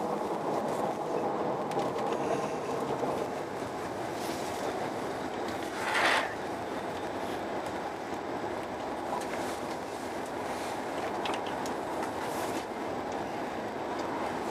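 Steady running noise inside a Eurostar Italia high-speed train cabin at speed, a continuous rumble and rush, with one brief louder rush of noise about six seconds in.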